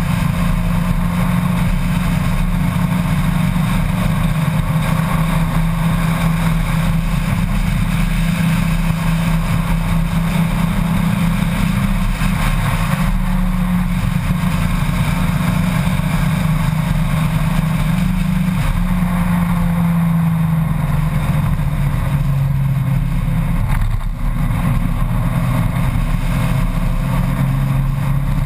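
Honda Gold Wing motorcycle engine running at road speed, its pitch dipping about two-thirds of the way through and climbing again near the end. Steady wind rush on the microphone runs under it.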